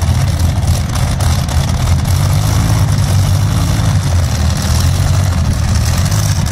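Modified pulling tractor's twin Rolls-Royce Griffon V12 aero engines idling with a steady low rumble.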